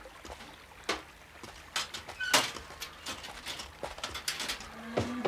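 Scattered light clicks and knocks of a metal cooking pot and its lid being handled, with one louder ringing clink a little over two seconds in.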